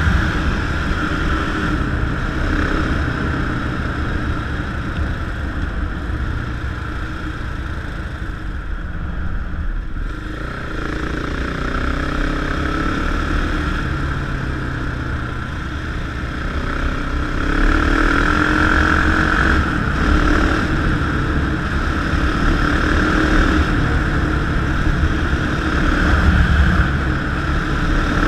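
Motorcycle engine running under way on a dirt road, with steady wind noise over it. The engine eases off about ten seconds in, then picks up again and grows louder from about seventeen seconds.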